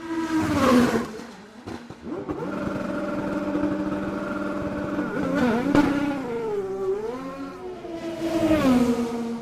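A single-seater race car passes by with a falling pitch. Then an IndyCar engine holds a steady note and is revved up and down in blips, waiting at the pit lane exit.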